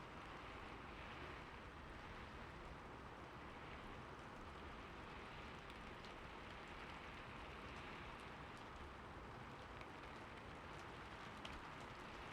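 Steady, faint rainfall, with a few scattered crisp drop ticks, mostly in the second half.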